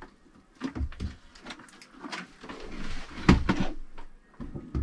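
Clicks, knocks and rustling from plugging a USB lead into a cigarette-lighter socket adapter and handling the fittings around it, with the loudest knock about three seconds in.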